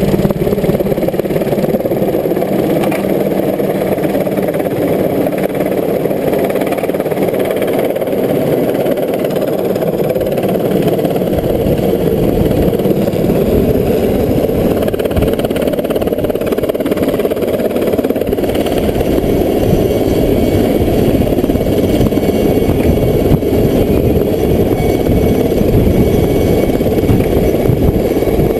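Light firefighting helicopter hovering low with a water bucket slung beneath, its rotor and turbine running steadily. The rotor's low beat grows stronger about halfway through as it comes closer overhead.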